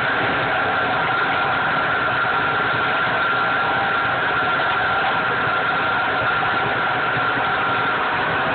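Handheld immersion blender running steadily in a plastic cup, a constant motor whine over a churning hiss, as it whips air into a maple sauce to turn it into foam.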